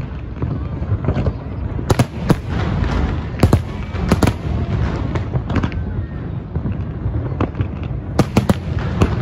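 Aerial fireworks finale: many shells bursting in quick succession, sharp bangs every second or so over a continuous low rumble and crackle, with loud clusters about two, three and a half, four and eight seconds in.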